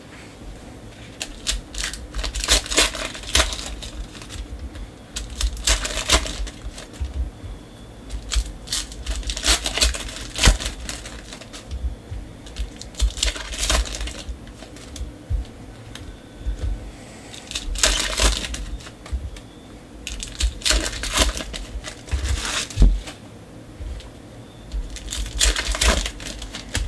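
Shiny foil wrapper of a Contenders basketball card pack crinkling and tearing as it is pulled open by hand, in irregular bursts with soft knocks of handling between.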